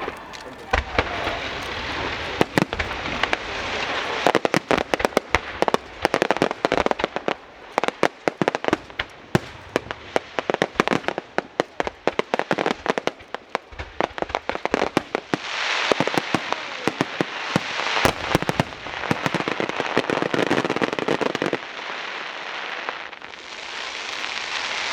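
Fireworks going off: a dense, rapid run of sharp bangs and crackling pops, which thins out about halfway into a steadier hissing crackle.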